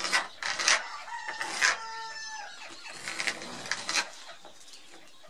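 Pencil scratching in short strokes as it is drawn around a grinding disc on an abrasive cutting disc. About a second in, a rooster crows once, a call lasting about a second and a half that drops in pitch at the end.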